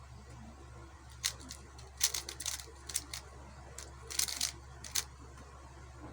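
Speed cube being turned in quick runs of plastic clicks and clacks, starting about a second in and coming in short bursts.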